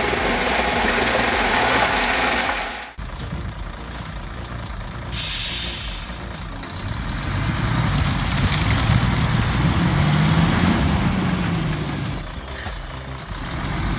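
Heavy diesel machinery running under load, cut off abruptly about three seconds in. Then a different heavy machine: a short hiss of released air, and its engine revving up and easing back down.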